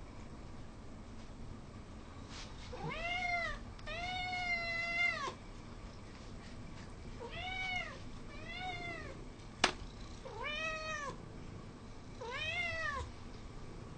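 Hungry house cats meowing for food and treats: six separate meows, one of them longer and drawn out. A single sharp click about two-thirds of the way through.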